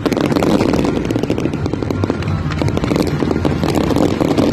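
Fireworks display: many aerial shells bursting at once, a continuous run of rapid bangs and crackles.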